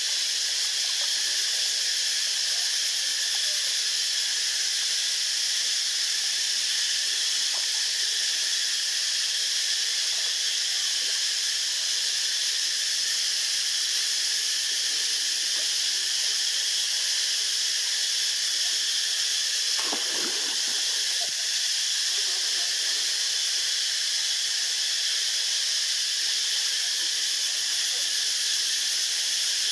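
Steady high-pitched hiss, with a brief soft rustle about twenty seconds in.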